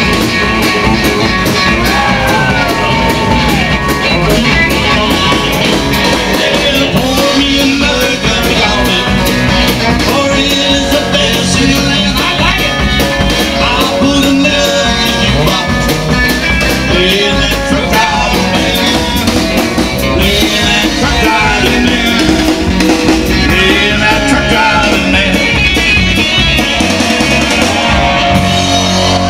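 Live band of electric guitar, electric bass and drum kit playing an up-tempo rock-and-roll number, loud and steady, the lead guitar bending notes.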